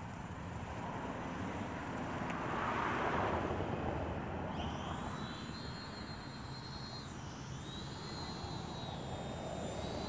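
MJX Bugs 2W quadcopter's brushless motors whining in flight: a thin high tone that comes in about four and a half seconds in, dips in pitch briefly and recovers as the throttle changes. Before it there is only a steady rushing noise that swells for a couple of seconds.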